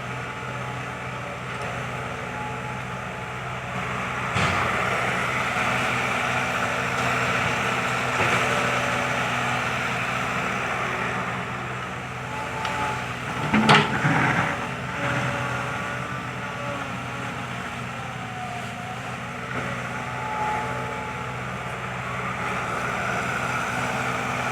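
Kobelco SK120 Mark III excavator's diesel engine running steadily under working load, with a wavering whine over it and one sharp, loud knock about halfway through.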